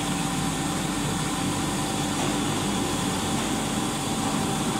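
Six-colour central-impression flexo printing machine for napkins running at about 70 metres a minute: a steady mechanical hum with a constant thin tone above it.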